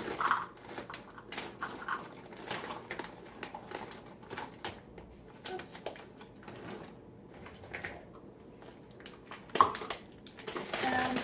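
Dried cranberries (craisins) being poured from a crinkling plastic bag into a plastic measuring cup and tipped into a plastic mixing bowl: irregular small rustles, patters and clicks, with a few louder clicks near the end.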